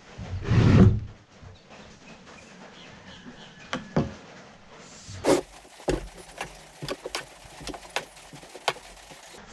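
A brief voice sound near the start, then a string of light, irregular clicks and knocks from about four seconds in: hand tools and plastic plumbing parts being handled while a fitting is worked into place.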